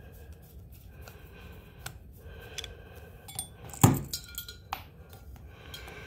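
Small metallic clicks and clinks from a small flathead screwdriver backing the brass jets out of a Honda EU2000i carburetor, with a cluster of sharper clicks near the end, the loudest about four seconds in.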